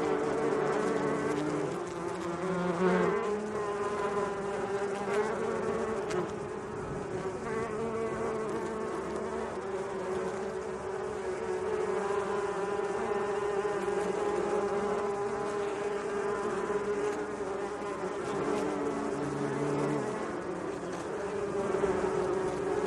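Bees buzzing steadily, several buzzing tones overlapping and wavering slightly in pitch.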